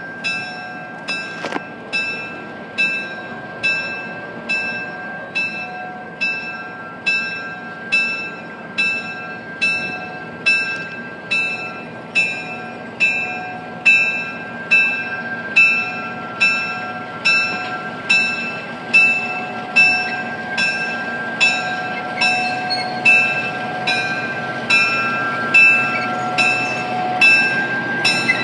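Locomotive bell on Atlantic Coast Line E3 diesel #501 ringing steadily, about three strokes every two seconds, as the unit moves off the turntable. The diesel's running sound lies underneath, and the strokes grow louder as the locomotive draws near.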